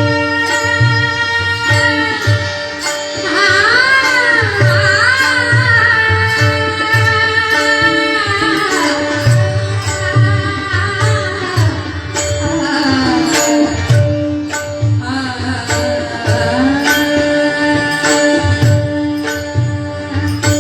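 Marathi bhajan sung in kirtan style: a singer's voice gliding and wavering over held accompanying notes, with a hand drum and small hand cymbals keeping a steady beat.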